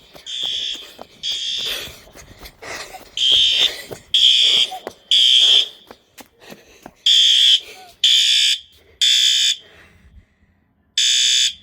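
Building fire alarm sounding its evacuation tone in the temporal-three pattern: three half-second blasts about a second apart, a pause, then three more, repeating.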